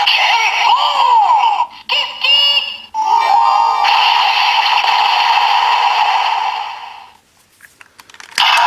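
Ryusouken toy sword with the MieSoul inserted, playing electronic sound effects and music through its small speaker: sweeping and stepped synth tones that fade out about seven seconds in, with a new burst of sound starting near the end.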